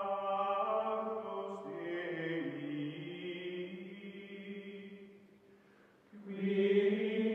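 Wordless choir-like music, slow held chords in a chant style. The voices change pitch a couple of times and fade away about five seconds in, then a new, louder chord enters about a second later.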